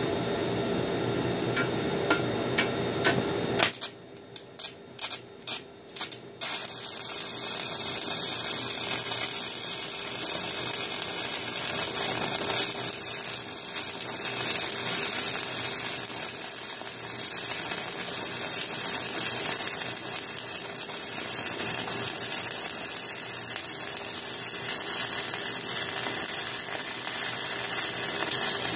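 Stick-welding arc from a 7018 electrode on brake rotors. After a few seconds of steady hum, the arc is struck in several short stop-start bursts about four seconds in. It then runs as a continuous crackling sizzle.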